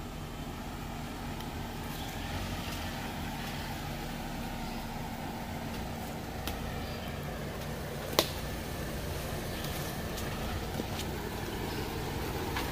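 An off-road vehicle driving on a dirt trail: a steady low engine hum with scattered small knocks and rattles, and one sharp knock about eight seconds in.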